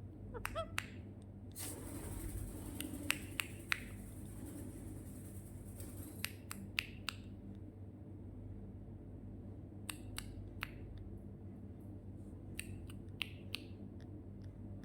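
Irregular sharp clicks and snaps from a pet parrot, some followed by short squeaky chirps, over a steady low electrical hum.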